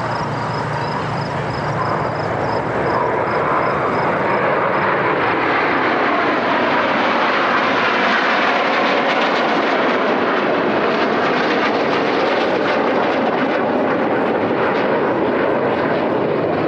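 A formation of BAE Hawk T1 jet trainers passing, their jet engine noise swelling over the first few seconds and then holding loud.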